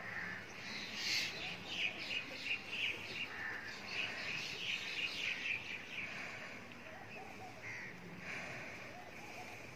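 Several birds calling in quick, short calls, busiest over the first six seconds and fainter after.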